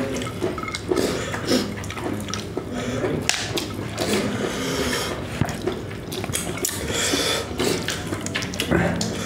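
Eating with the hands: fingers mixing and squeezing rice on plates, with chewing and lip smacks, heard as many short irregular clicks and smacks.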